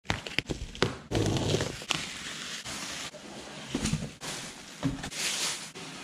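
A few sharp snips of scissors cutting plastic packing straps, then bubble wrap and plastic wrapping crinkling and rustling as it is pulled off and handled.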